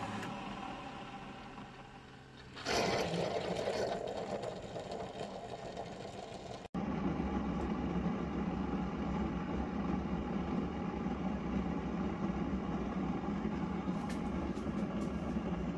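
Keurig single-serve brewer dispensing hot water into a glass with a steady hum; about three seconds in it gives a sudden loud hiss and sputter, blowing out the last water and steam as the brew ends. After a cut, a steady low machine hum.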